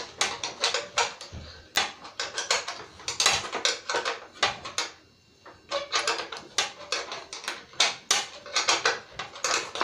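Quick metallic clicking and clinking of a hand wrench working bolts loose on a lawn tractor's steel frame, with a short pause about five seconds in.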